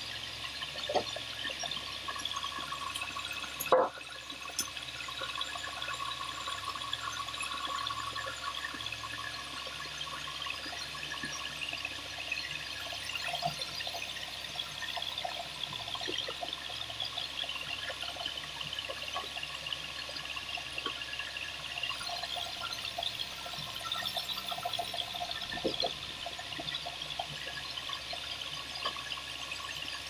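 Band sawmill running and sawing timber on a log carriage: a steady hiss, with a sharp knock about four seconds in and a few lighter knocks.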